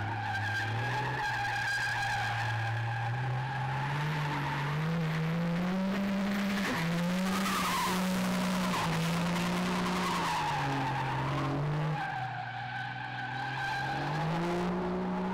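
Pickup truck drifting: its tyres squeal steadily while the engine holds high revs, the pitch rising and falling with the throttle. The sound drops a little in level near the end.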